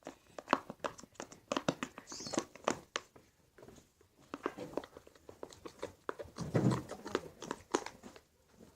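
Stirring a sticky mix of glue and shaving foam in a pot: irregular wet, squelching clicks and crackles.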